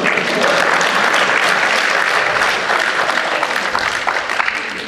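Theatre audience applauding: a dense, steady clatter of many hands clapping that eases slightly near the end.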